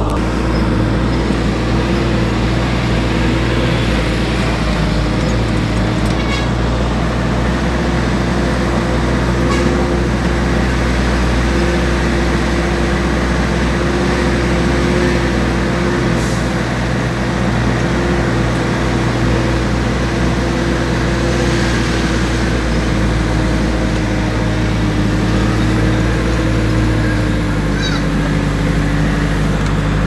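Vehicle engine running steadily while driving along: an even, deep drone with a steady hum above it.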